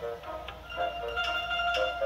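Instrumental cartoon score: a melody of quick, short notes.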